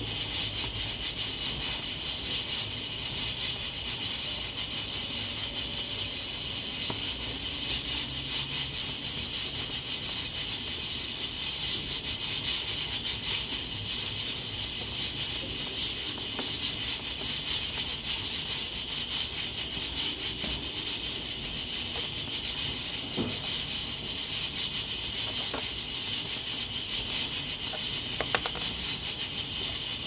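Nigro external-lid pressure cooker hissing steadily as steam escapes through its valve, a sign that it is at working pressure. A couple of faint clicks sound late on.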